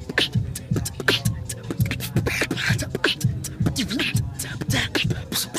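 Beatboxing: a fast, steady beat of bass-drum kicks, hissing snares and sharp clicks, all made with the mouth.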